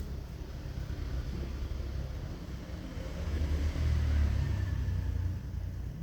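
A low rumble that swells about three and a half seconds in and eases off near the end.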